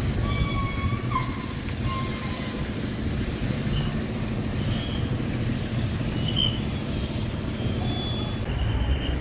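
Outdoor town ambience of steady distant traffic rumble with wind buffeting the microphone. A few faint, short high-pitched tones are scattered through it, one in the first second dipping in pitch.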